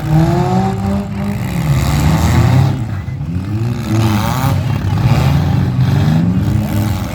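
Several demolition derby cars' engines revving, loud and overlapping, their pitch rising and falling again and again as the cars accelerate and slow.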